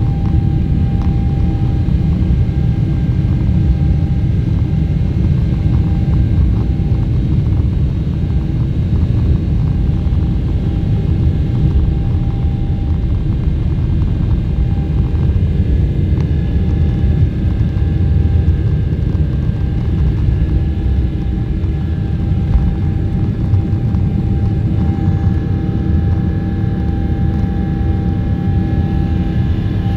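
Boeing 777's GE90 turbofan engines at takeoff power, heard inside the cabin beside the engine: a loud, steady rumble with a constant whine through the takeoff roll and initial climb.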